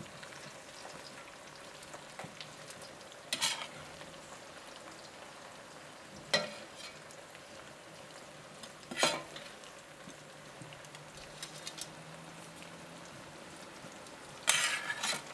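A metal spoon scraping and knocking against a cooking pot and pan as food is spooned into the pot, four short scrapes, the last and loudest longer, over a steady low hiss.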